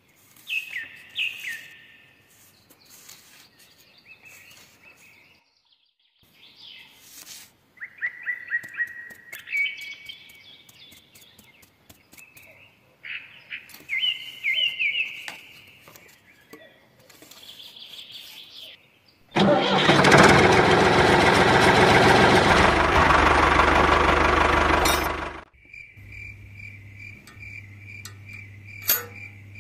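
Birds chirping, with a few light clicks, then a loud engine sound runs for about six seconds and cuts off suddenly, followed by a faint steady high whine over a low hum.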